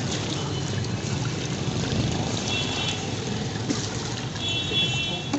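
A metal ladle stirring and sloshing thick mango milkshake with jelly chunks in a large steel pot, over steady street background noise. Two short high-pitched tones sound briefly, one about halfway through and one near the end.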